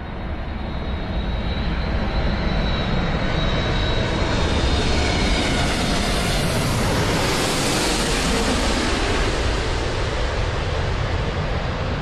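Jet aircraft engines during a landing approach: a dense rushing noise with a faint high whine, swelling over the first couple of seconds and brightest about seven to eight seconds in as the aircraft passes.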